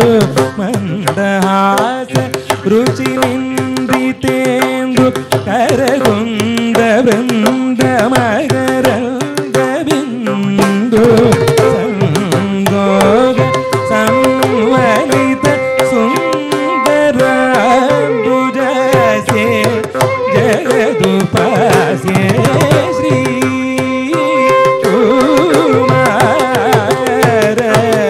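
Carnatic vocal concert: a male singer sings an ornamented melodic line in raga Atana, with violin following him and mridangam keeping rhythm.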